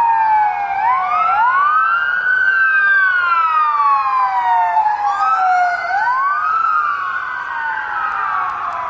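Several police sirens wailing out of step with one another, each tone sweeping quickly up and then slowly down.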